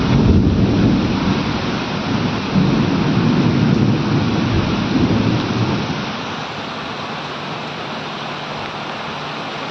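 Rain falling steadily, with a roll of thunder that swells twice and dies away about six seconds in, leaving only the hiss of the rain.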